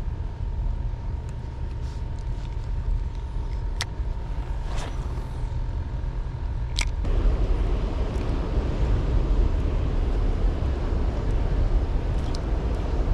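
Steady low rumble of wind and choppy water around a small fishing boat, with a few sharp clicks from handling the spinning rod and reel. A faint steady whine stops with one of the clicks about seven seconds in, and the rushing noise grows louder after it.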